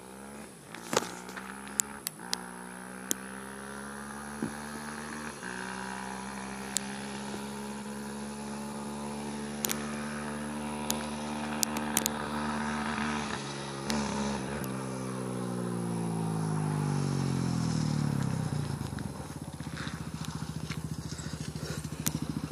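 Four-wheeler (ATV) engine drawing nearer, growing louder as its pitch climbs in steps. About 18 seconds in, the pitch drops sharply as it slows, settling into a low, pulsing chug close by. Several sharp clicks sound in the first half.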